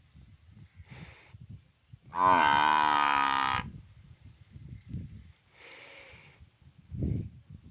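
A cow mooing: one loud call of about a second and a half that rises in pitch at the start, then holds.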